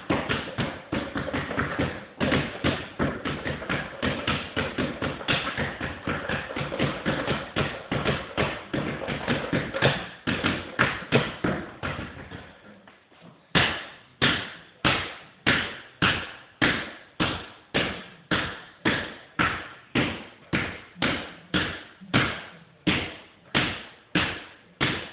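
Basketball dribbled hard on a hardwood floor, a fast, dense run of bounces in the first half, then, about halfway through, a slower, steady beat of roughly two to three bounces a second.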